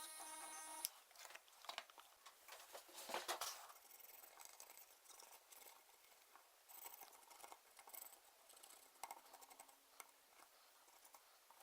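Faint clicks and rustles of small parts being handled on a workbench, a little busier about three seconds in. A steady electrical hum with several tones cuts off suddenly about a second in.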